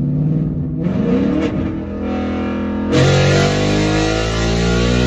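2019 Ford Mustang GT's modified, loud 5.0 V8 accelerating hard: its pitch climbs about a second in, then it gets suddenly louder about three seconds in and keeps rising.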